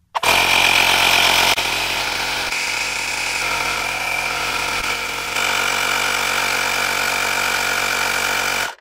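AUTLEAD C5 12-volt portable tire inflator running steadily under load, pumping a dually RV tire up toward 61 psi as the pressure climbs past 51. It stops suddenly near the end.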